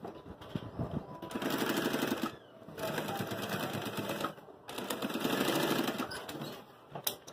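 Industrial straight-stitch sewing machine stitching in three runs of a second or so each, with short pauses between. A couple of sharp clicks come near the end.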